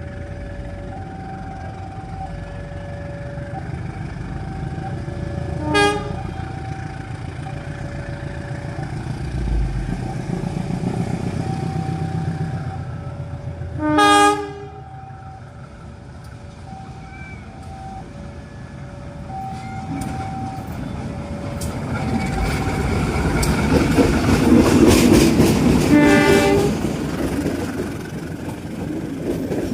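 Train passing a level crossing: its horn sounds in short blasts, about six seconds in, again near the middle and once more near the end. A two-note warning signal alternates steadily underneath. About two thirds of the way through, the rumble grows louder with the clickety-clack of the cars passing.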